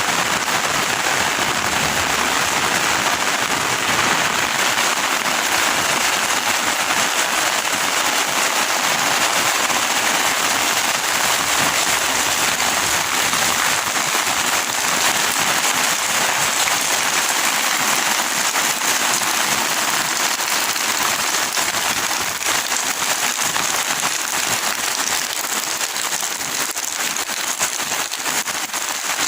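Heavy rain falling steadily, a dense even hiss with many small crackling drop impacts.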